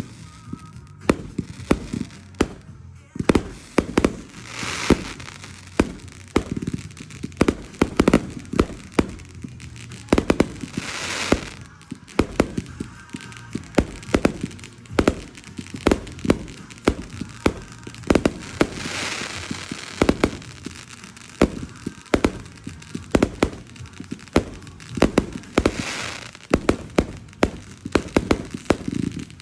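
Fireworks going off: a rapid, irregular run of sharp cracks and bangs, with a hissing swell every several seconds.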